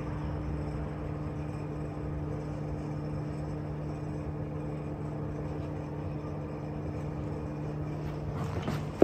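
A steady low hum from a motor or appliance in the room, with a few soft knocks near the end.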